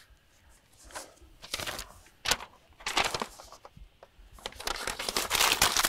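Sheets of paper rustling and crinkling as they are handled, in short scattered rustles with a longer, denser rustle near the end.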